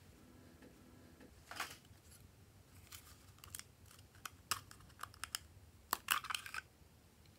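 Hard plastic toy container being handled and opened: a string of sharp plastic clicks and snaps, quickening about four seconds in, with the loudest ones about six seconds in.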